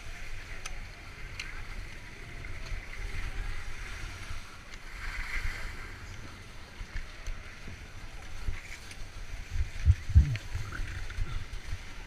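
Skis sliding over slushy snow with wind rumbling on a point-of-view camera's microphone, with the faint chatter of a crowd of skiers behind. A few louder low thumps come about ten seconds in.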